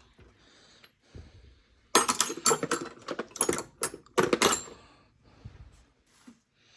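Rapid metallic clicking and rattling for about two and a half seconds, starting about two seconds in: hands working a Stihl MS 250 chainsaw's bar, chain and bar nuts with metal tools. A few faint knocks come before and after.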